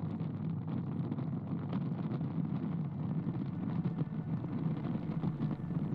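Car driving steadily along a highway, heard from inside the cabin: an even low rumble of tyres and engine.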